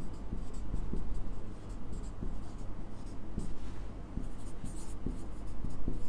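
Marker pen scratching and squeaking across a whiteboard while writing, in a quick run of short strokes.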